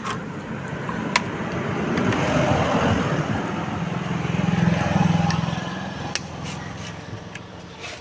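A motor vehicle's engine running, swelling to its loudest about five seconds in and then fading, with a few sharp clicks.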